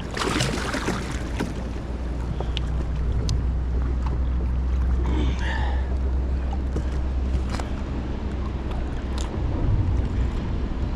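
Steady low rumble of wind buffeting the microphone over the rush of river water, with a brief louder rush of noise about half a second in and a few scattered clicks.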